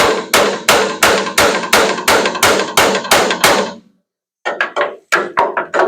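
Body hammer striking the dented sheet-metal bed panel of a pickup truck, with a second hammer held behind the panel as a dolly: a steady run of about three ringing blows a second, a short pause, then a quicker run of lighter taps near the end. This is hammer-and-dolly work straightening a dent.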